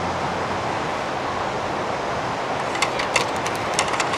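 Steady outdoor wash of wind and surf, with a quick run of sharp clicks and clinks in the last second or so.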